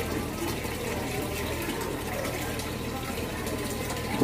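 Water splashing steadily from a small garden fountain, over a steady low hum. A single sharp knock right at the end.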